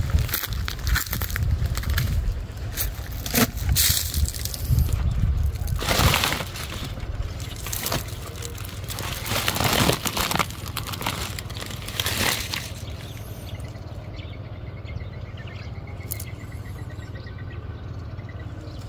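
Rustling and scraping of a woven plastic sack and leaves around papaya fruit at close range, with wind buffeting the microphone. The noises thin out over the last few seconds.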